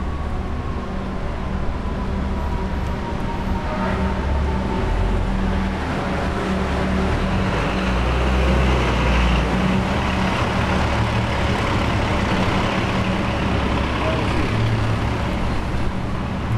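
Street traffic: car and truck engines running and tyres passing, with a louder vehicle going by around the middle. A high whine, slowly falling in pitch, fades out over the first few seconds.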